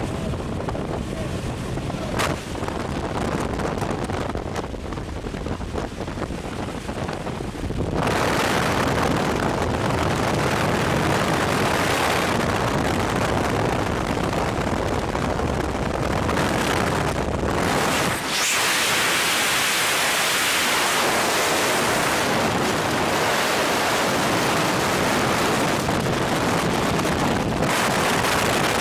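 Wind blasting over the microphone at the open door of a small jump plane, with the engine rumbling underneath. About eight seconds in the wind gets much louder. In the later part the low rumble drops away, leaving steady rushing wind noise of freefall.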